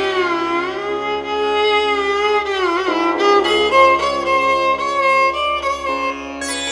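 Instrumental background music in an Indian classical style: a violin-like melody slides slowly between held notes over a steady drone.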